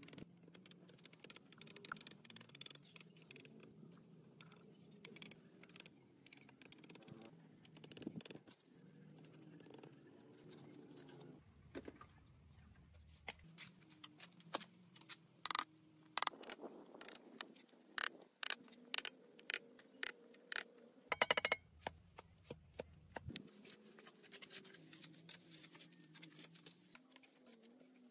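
Steel hand trowel scraping, patting and tapping wet cement mortar onto brickwork: an irregular run of short scrapes and sharp clicks, busiest in the second half.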